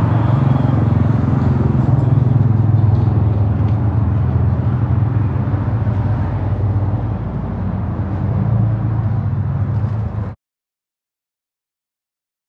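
Steady low rumble of a car driving, road and tyre noise with no speech. It cuts off suddenly about ten seconds in, leaving about two seconds of dead silence.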